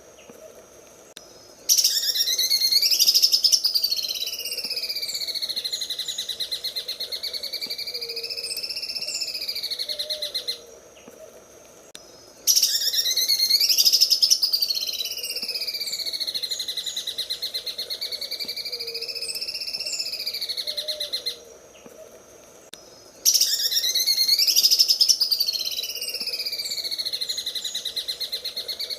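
Green leafbird (cucak ijo) singing its rapid, machine-like 'sewing machine' trill. The song comes as three long bouts, each about nine seconds, separated by short pauses. Within each bout the pitch swoops up and down in slow waves.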